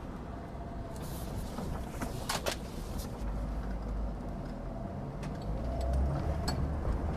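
Leopaard Black King Kong 2.4 four-wheel-drive SUV driving slowly over rough unpaved ground: a low engine and drivetrain rumble that gets louder from about three seconds in, with scattered light rattles from the body and one sharper clack about two and a half seconds in. The chassis itself makes little noise.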